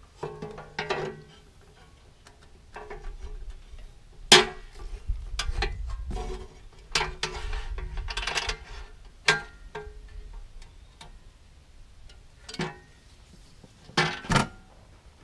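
Irregular metal clanks and knocks, some ringing briefly, as the steel control tower of a Kubota BH92 backhoe is handled and lifted off its base. The loudest knock comes about four seconds in.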